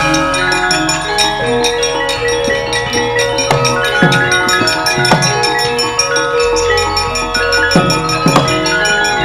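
Javanese gamelan music: ringing metallophones holding layered notes, with hand-drum strokes that drop quickly in pitch every second or so.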